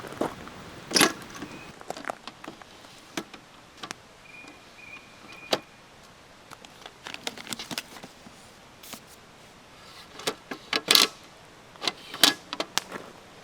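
Irregular clicks, knocks and light rattles of objects being handled, a few of them sharper. There are a few short high chirps near the middle.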